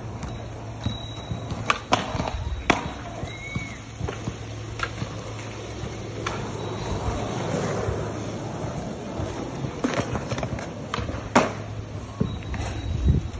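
Wheels of trick scooters and a skateboard rolling over asphalt, with several sharp clacks of decks and wheels striking the ground.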